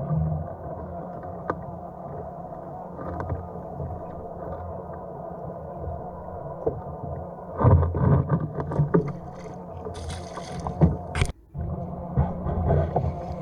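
Wind and water noise aboard a kayak at sea, a steady dull rumble, with louder irregular knocks and splashes from about halfway through.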